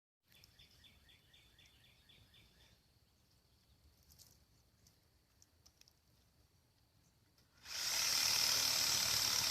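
Quiet outdoor ambience with a faint rapid series of short chirps for the first couple of seconds. A loud, steady rushing hiss starts suddenly near the end.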